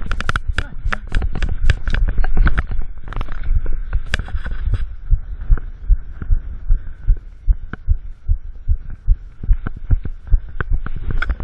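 Mountain bike rattling and knocking as it rolls down a rough, rocky dirt trail, each bump coming through as a low thump on the mounted GoPro. The clatter eases for a few seconds in the middle, then picks up again.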